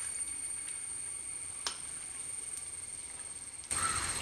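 Spring rolls deep-frying in hot oil in a small pan: a faint, even sizzle with scattered light ticks and one sharper click about a second and a half in. Near the end the sizzle suddenly becomes louder.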